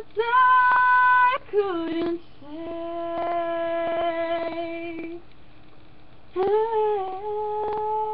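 Solo female voice singing a cappella without words: two short high notes, then a long hummed note of about three seconds, and after a short pause another held note near the end.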